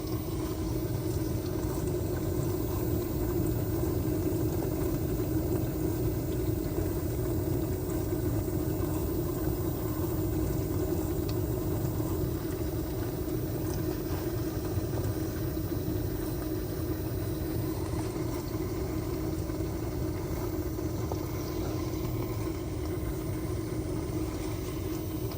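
LG dishwasher running a heavy-soil wash cycle: a steady motor hum with one held tone that does not change.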